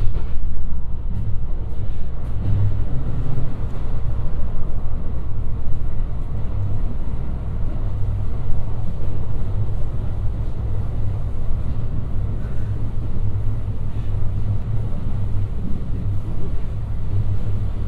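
Interior running noise of a JR West 223-series electric train at speed: a steady low rumble of wheels on rail, heard from inside the passenger car.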